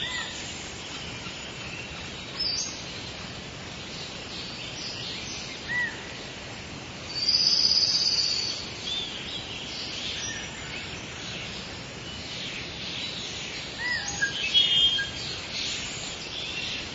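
Rainforest ambience: a steady background hiss of the forest with scattered bird calls. There are short, quick chirps every few seconds, a loud high trill about seven seconds in, and another burst of calls near the end.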